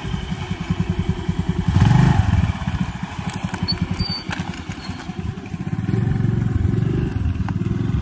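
Honda Grazia scooter's single-cylinder 125 cc engine running as the scooter rides off over grass, revving up about two seconds in and again later.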